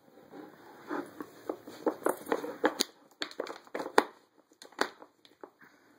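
A dog pawing and nosing at a wooden Dog Fighter puzzle toy: an irregular run of light wooden clicks and knocks from the pegs and board, the sharpest about four seconds in.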